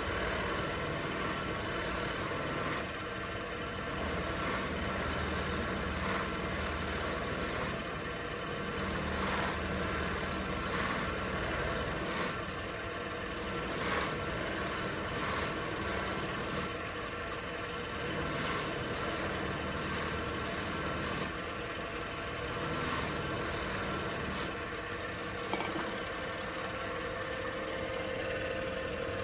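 Small woodturning lathe running steadily, its motor humming with the workpiece spinning during the finishing stage of a turned crochet hook.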